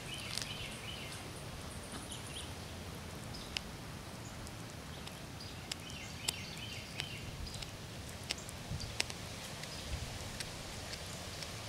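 Cat chewing a chipmunk carcass: scattered sharp crunches and clicks of teeth on small bones, over a steady outdoor background with faint bird chirps.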